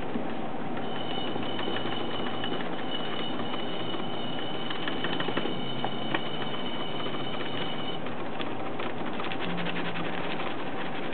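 Bread flour poured from a paper bag into a plastic mixer bowl: soft, steady hiss and rustle, with some crinkling of the paper bag near the end. A thin high whine comes and goes behind it.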